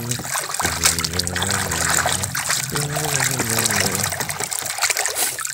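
Water trickling and splashing as a muddy toy is rinsed clean, with background music playing a held melody in two phrases.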